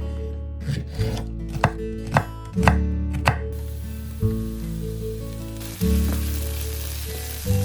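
Music with low held notes changing every second or two, with a run of sharp knocks in the first half and a steady hiss in the second half.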